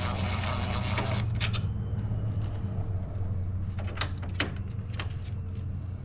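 DeWalt cordless drill running as it backs out a Phillips screw from a sensor bracket on a plastic grille, stopping about a second in. A few sharp clicks and knocks of the bit and plastic parts follow over a steady low hum.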